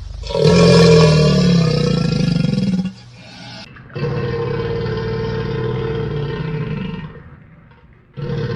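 Crocodile sound effect: two long, low bellowing calls, each lasting two to three seconds with a short pause between, and a third starting near the end.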